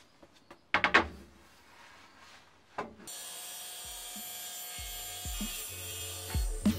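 A large solid-wood board knocked and rubbed as it is set down and slid across a table saw's table, with two loud knocks about a second in and another just before three seconds. From about three seconds in, background music with a pulsing bass takes over.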